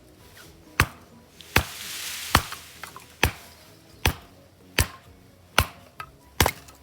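Hand axe chopping firewood: eight sharp strikes at a steady pace, about one every 0.8 seconds, with a brief rush of noise about two seconds in.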